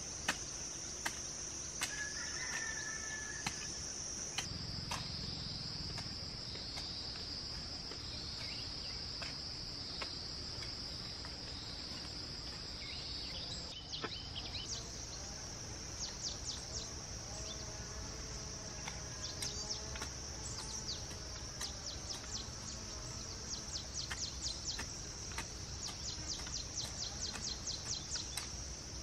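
Steady, high-pitched drone of insects, breaking into rapid pulsing chirps in the second half, with a few sharp knocks near the start.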